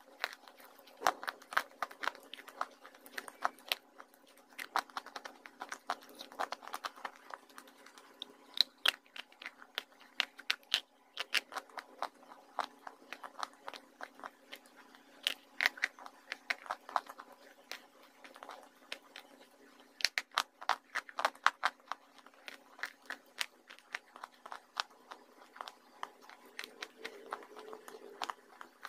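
Close-miked crunching and chewing of dry clay chunks, sharp brittle crackles coming in irregular clusters of bites over a faint steady hum.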